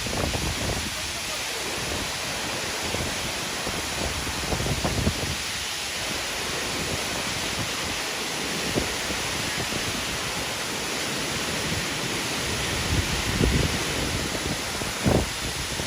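A waterfall rushing with a steady, even hiss of falling water, with a few brief low bumps about five seconds in and again near the end.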